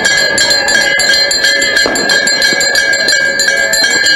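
A metal bell rung rapidly and without pause, about six strokes a second, its ringing tones sustained between strokes.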